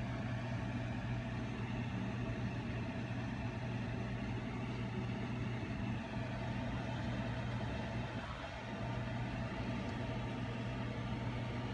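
Steady low machine hum with no change in level.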